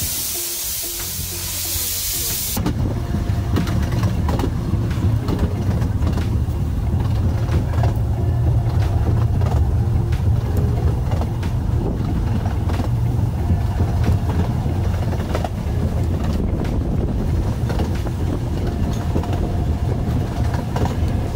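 Ravenglass and Eskdale Railway 15-inch gauge steam train pulling away: a loud hiss of steam from the locomotive cuts off suddenly about two and a half seconds in. Then the steady low rumble of the carriage running on the rails, with scattered clicks and clatter from the track.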